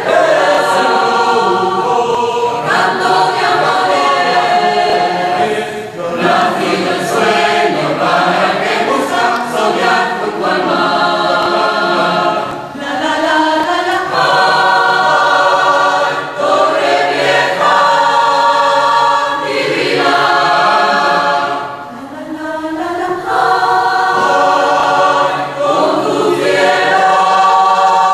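Mixed choir of men's, women's and children's voices singing a habanera in several parts, with brief breaths between phrases about 6, 12 and 22 seconds in.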